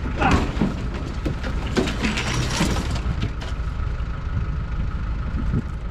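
Tractor engine idling steadily. Over it, a rusted steel pickup truck bed clanks and scrapes as it is tipped over and falls onto the ground, a burst of clatter in the first three seconds.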